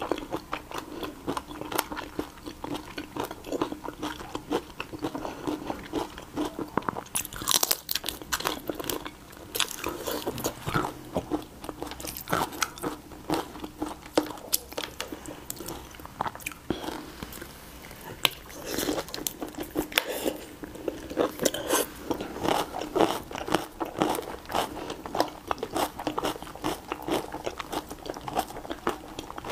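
Close-up eating sounds of raw shrimp in chili sauce: wet chewing and crunching, with the thin shells crackling and tearing as they are peeled by hand, a dense run of small sharp clicks throughout.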